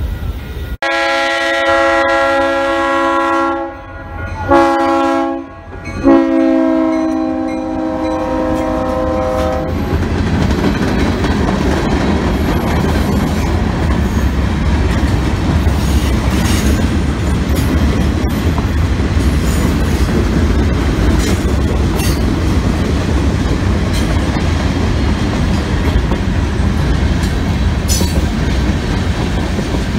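A freight train's diesel locomotive air horn sounds three blasts of several notes at once, the last held for about three and a half seconds, warning for a road crossing. From about ten seconds in, freight cars roll past with a steady rumble and wheel clatter.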